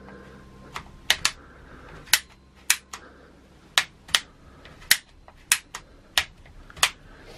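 Twist-grip gear shifter on a trike handlebar being turned, giving about a dozen sharp clicks at an uneven pace, some in quick pairs.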